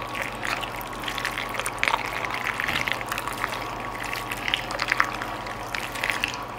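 Cooked elbow macaroni being stirred into thick cheese sauce: wet squelching and sloshing with many small irregular squishes, over a faint steady hum.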